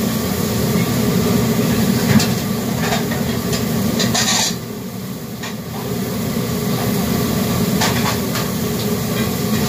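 Commercial wok range burner running with a steady low roar under a wok of sizzling food, with scattered sharp clinks of the metal ladle and pans. About four seconds in there is a brief burst of bright hissing, and then the sound drops for a second or so before it picks up again.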